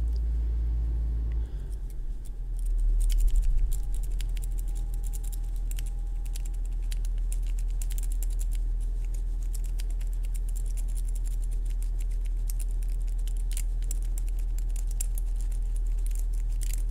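Rake pick scraping and clicking over the pin tumblers of a six-pin euro cylinder lock with a Yale keyway: rapid, irregular fine metallic ticks from about three seconds in, over a steady low hum.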